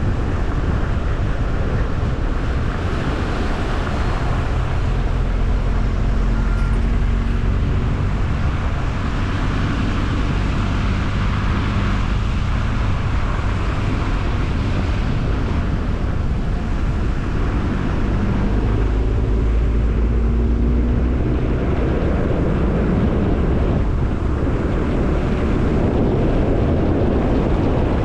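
Car driving at a steady pace: tyre rumble on the road and a low engine hum, with the engine note shifting slightly twice.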